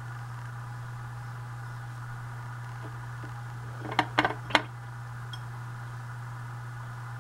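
A paintbrush tapped against the rim of a glass water jar while being rinsed: three sharp clinks within about half a second, about four seconds in. A steady low hum runs underneath.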